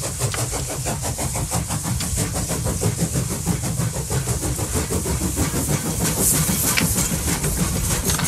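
Fast, steady chugging like a steam train, with a hiss on top.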